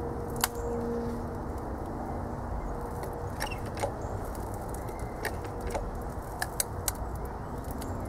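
30-ton hydraulic jack being pumped slowly by hand to close a homemade hose crimper's die onto a hydraulic hose fitting: scattered light metallic clicks over a steady low background hiss.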